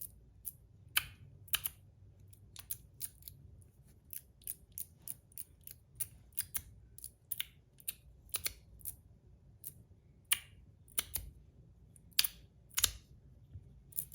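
A 42 Cosmo Last Mermaid XXL slider fidget being slid back and forth, giving sharp clicks about two a second, some in quick pairs, as it snaps between positions.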